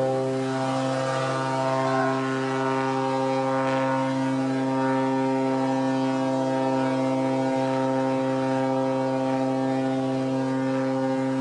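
A large ship's horn sounding one long, steady blast as the ferry is run aground onto a shipbreaking beach.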